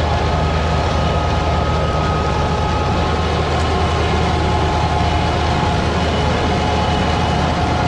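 Large farm machine's engine running steadily under load, a low drone with a faint steady whine over it.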